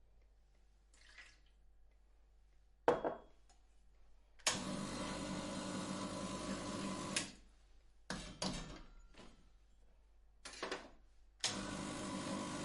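Electric coffee grinder motor grinding beans in starts and stops. A sharp click near 3 s, then a run of nearly three seconds that cuts off sharply, a few short pulses, and another steady run starting near the end.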